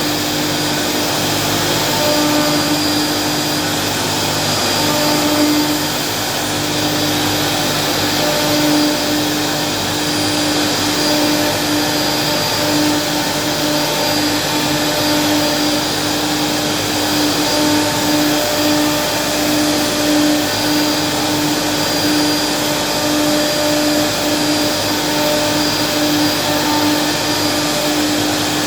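CNC router running steadily: a continuous whine from the spindle over a loud rushing noise, the tone wavering slightly as it cuts.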